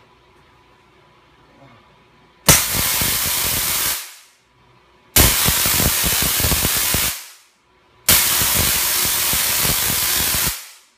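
Spark-gap Tesla coil powered by a 15 kV 30 mA neon sign transformer, with a static spark gap of copper couplings, firing in three bursts of about two seconds each: a loud, harsh buzzing crackle of sparks and arcs that starts abruptly each time.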